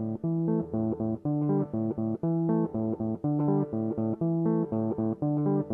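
Background music: a plucked guitar intro with bass, a steady run of picked notes.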